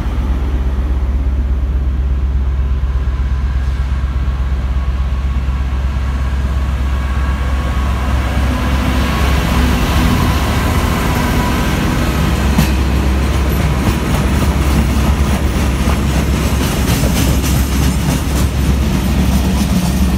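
Class 66 diesel freight locomotive approaching and passing close by, its two-stroke V12 engine running. It is followed by a long string of hopper wagons rolling past with a fast clickety-clack of wheels over the rail joints that thickens in the second half. A steady low rumble runs under it all.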